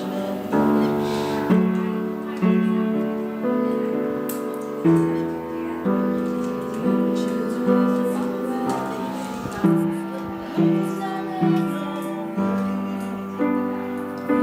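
Slow piano music, a new note or chord struck about once a second and left to ring.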